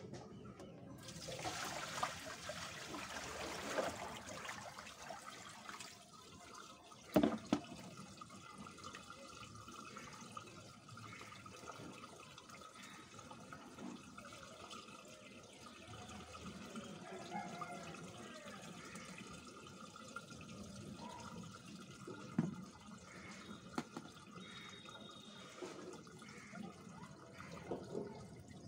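Water splashing and running as long wet hair is lifted out of a plastic tub, then quieter dripping and trickling onto a wet concrete floor. Two sharp knocks, about seven seconds in and again near twenty-two seconds.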